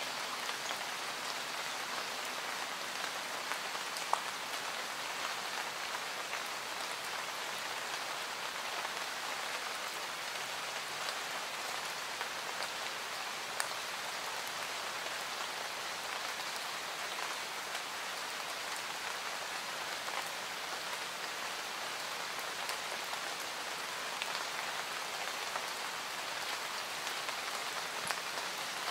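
Steady rain falling on a surface, an even hiss with a few faint, sharper drop ticks now and then.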